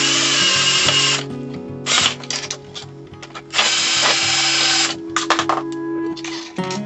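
Power drill whirring in bursts: one at the start lasting about a second, a short one about two seconds in, and another of about a second and a half near the middle, with quick clicks in between. Background music plays underneath.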